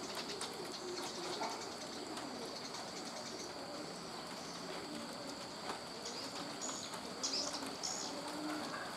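Doves cooing low and repeatedly among other birds, with a few short high chirps about six to eight seconds in over a steady high insect-like tone.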